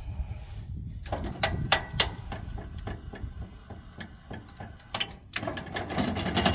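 Electric deck-lift motor on a 2003 Murray Performance GT lawn tractor running, its arm pulling on the rock shaft to change the mowing deck's height, with several clicks and knocks along the way.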